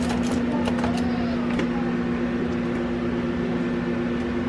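Steady electric hum of a kitchen appliance, one low unchanging tone, with a few light clicks in the first couple of seconds.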